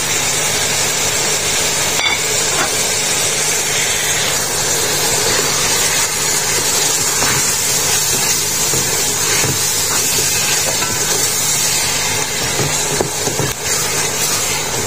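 Minced meat and onions sizzling in oil in a metal pot, a steady hiss, as freshly added ground spices are stirred in with a wooden spoon.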